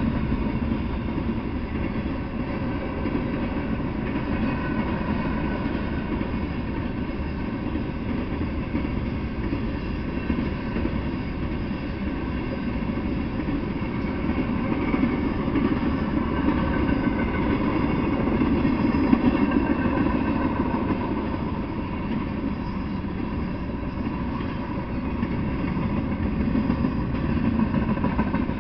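Freight train of boxcars and covered hopper cars rolling past: a steady rumble of steel wheels on the rails, with faint wavering tones riding above it.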